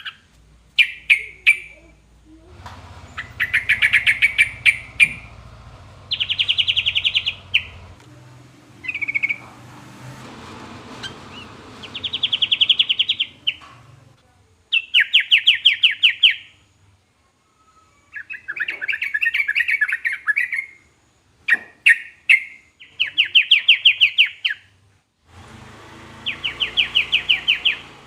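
Yellow-vented bulbul (trucukan) singing: repeated phrases of rapid, fast-pulsed notes, each one to two seconds long, with short pauses between.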